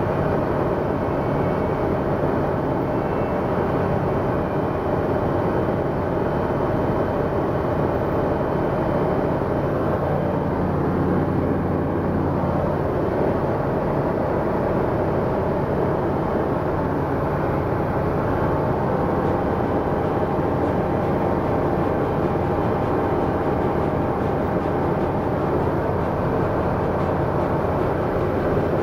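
Steady cabin drone of a light propeller aircraft in cruising flight: the engine and propeller run evenly, heard from inside the cockpit.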